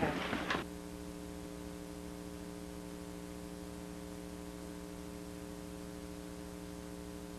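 A brief voice, then an abrupt cut about half a second in to a steady hum of several fixed tones with no other sound.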